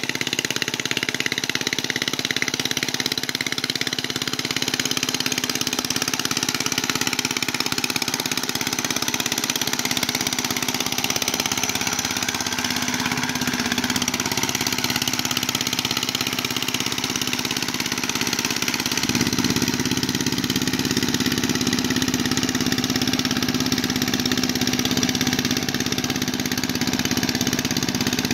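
Engine of a walk-behind mud boat tiller running steadily under load as it churns through flooded paddy mud. About two-thirds of the way through, its note grows louder and fuller.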